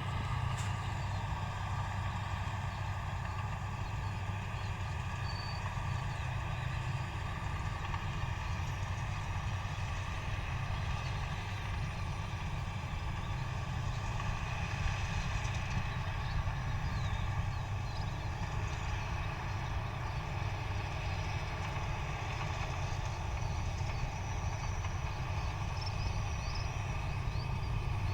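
Rice combine harvester's diesel engine running at a steady, even speed, a deep continuous drone with no change in pace.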